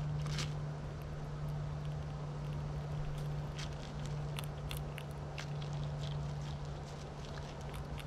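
Scattered light clicks and scratches, typical of squirrels scrabbling and handling seed close to the camera, over a steady low hum.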